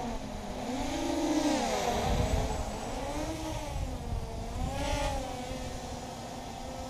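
Brushless motors and propellers of a small 260-size FPV racing quadcopter whining as it hovers and manoeuvres, the pitch rising and falling with the throttle.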